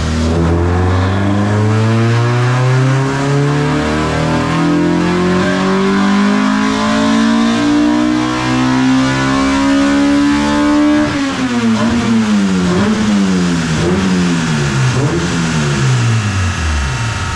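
Honda K-series four-cylinder engine, freshly built with high cams, Wiseco pistons and Manley rods, in an EK Civic on a chassis dyno. It is pulled at full throttle with the revs climbing steadily for about eleven seconds, then lets off and the revs fall away, wavering, as it slows down.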